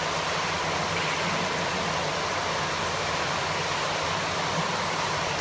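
Steady rushing noise of an indoor swimming pool's water circulation, with a low hum underneath.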